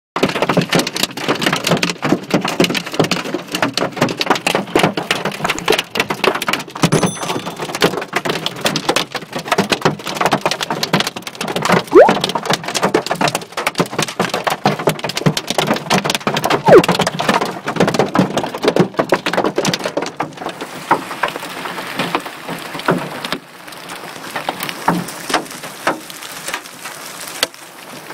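Heavy hail hammering a car, a dense, loud clatter of hard hailstone impacts. After about twenty seconds it eases to a lighter, steadier patter of hail on the ground and car.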